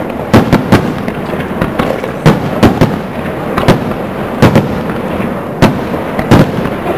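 Aerial fireworks shells bursting: a string of sharp bangs at irregular spacing, about two a second, over a continuous low rumble.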